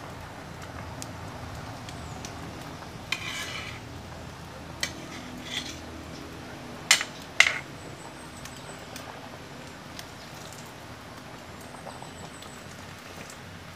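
Metal spatula stirring banana slices in coconut milk in a wide metal wok, scraping and clinking against the pan, with two sharp clinks, the loudest, about seven seconds in. A steady low hiss from the simmering pot runs underneath.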